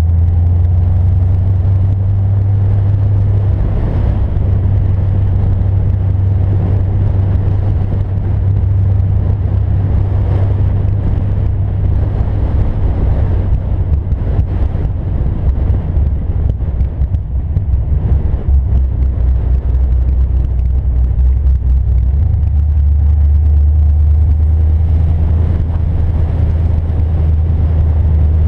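Cammed 2011 Cadillac CTS-V wagon's supercharged 6.2 L V8 running through a catless exhaust with Borla XR1 mufflers: a loud, deep drone while the car cruises at low speed. It turns choppier and more uneven in the middle stretch, then settles back to a steady drone.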